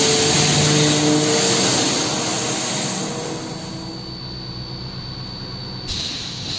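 Automatic pneumatic wire mesh welding machine running: a loud, steady rush of machine noise and air hiss that drops in level after about three seconds. A sudden burst of hiss comes in about six seconds in.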